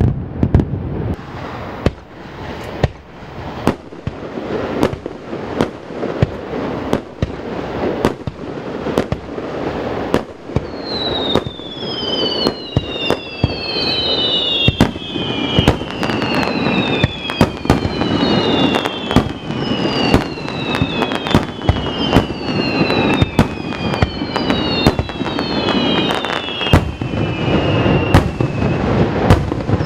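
Fireworks display: a dense string of sharp bangs and crackles. From about ten seconds in, many whistling fireworks join them, each one a falling whistle, overlapping one another.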